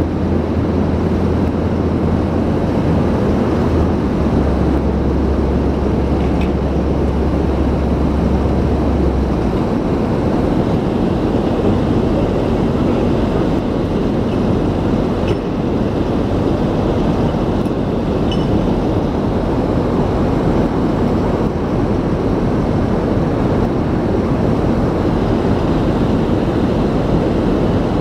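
Heavy construction machinery running: a diesel engine's low drone steps in pitch about four seconds in and drops away about nine seconds in, over a steady rumbling noise, with a few faint clicks.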